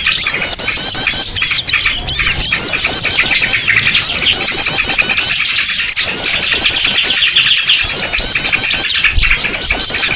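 A loud, dense chorus of many small songbirds chirping and twittering over one another without a break. It is a small-bird lure ('pikat burcil') recording, made to call small birds in.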